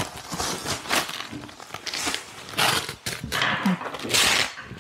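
Clear plastic packaging bag and wrapping being crumpled and handled, in a run of crinkling, rustling bursts that are loudest about two and a half seconds in and again near the end.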